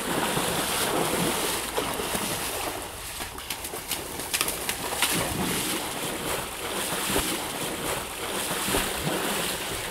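Muddy water sloshing and splashing as a person wades through a swamp mud hole, with many short splashes over a continuous churning wash.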